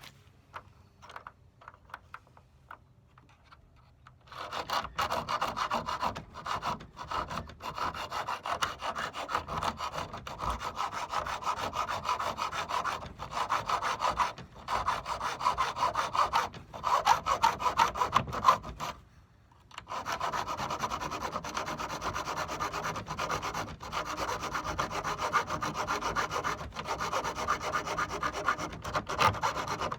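Hand sawing through wood with steady, rapid back-and-forth strokes. It starts about four seconds in after a few faint clicks and pauses briefly about two-thirds of the way through before carrying on.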